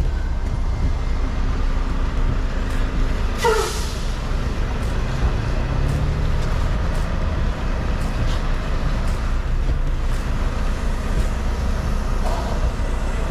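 Semi truck's diesel engine running at low speed, heard from inside the cab while the truck reverses a trailer toward a loading dock. A short burst of hiss comes about three and a half seconds in.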